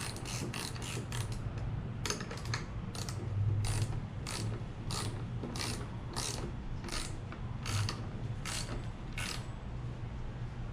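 Ratchet wrench clicking as it tightens the axle nut on a mobility scooter's front wheel: a quick run of clicks, then about a dozen single clicks a little over half a second apart.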